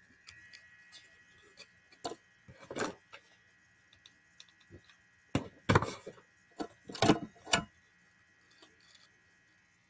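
Handling noise from craft work on a tabletop: scattered taps and clicks of a hot glue gun, tools and a wooden cutting board, with a run of louder knocks between about five and eight seconds in.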